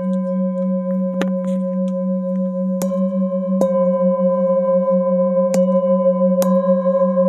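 A set of metal singing bowls struck one after another with a padded mallet, about five strikes, each adding a fresh ringing tone over a deep hum that keeps sounding. The layered tones overlap and waver slowly.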